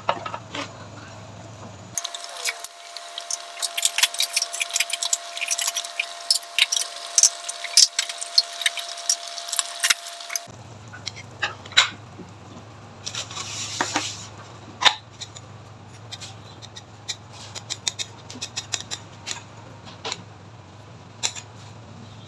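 A metal ladle and spoon clinking and scraping against a steel soup pot, a glass bowl and a small ceramic dish as beef rib soup is served, many quick sharp clicks. A low hum runs under most of it.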